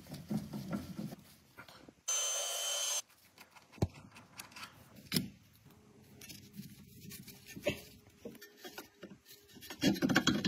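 Hand tools and metal parts being worked on a Volvo tie rod end: a wrench rattling on the tie rod jam nut, a one-second hiss about two seconds in, then a few sharp metal clicks and knocks as the tie rod end's stud and nut are fitted at the steering knuckle, with more rattling near the end.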